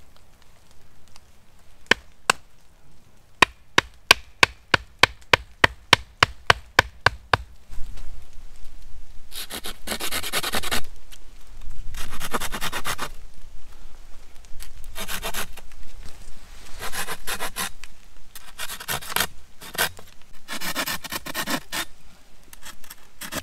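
A run of sharp knocks, about two or three a second, then long rasping strokes on wood, each about a second long. These are notches being cut into a wooden stick for a tent guy line.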